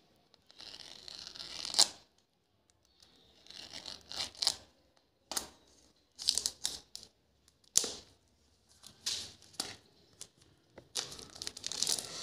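Clear plastic shrink-wrap on a small cardboard box being picked at and torn open with a fingernail: scattered crackles and short crinkling rustles with quiet gaps between them, turning into steady crinkling near the end as the wrap comes off.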